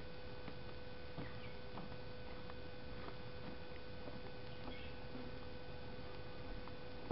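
Footsteps on wooden boardwalk steps: faint light taps at walking pace, over a steady hiss and a faint steady hum.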